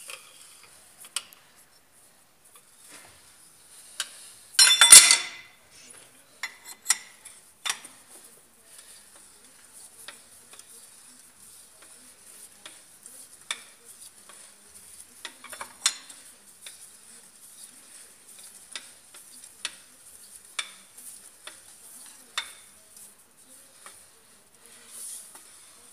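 Scattered metallic clicks and clinks of a wrench working the nut of a screw-type cylinder-liner puller as a liner is drawn out of an Isuzu diesel engine block. A loud grating burst of about half a second comes about five seconds in.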